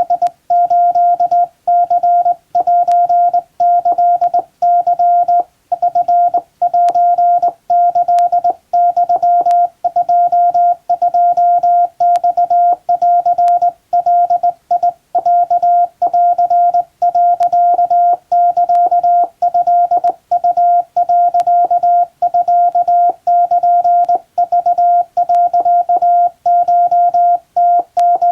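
Hand-keyed Morse code from a Japan Radio Co. telegraph key: a steady tone of about 700 Hz switched on and off in a continuous run of dots and dashes, with short gaps between characters and words. It is sending Japanese Wabun code telegram text.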